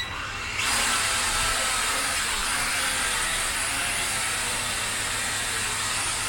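E88 Pro toy quadcopter's four small motors and propellers spinning up for take-off and running steadily: a whirring hiss that comes on about half a second in.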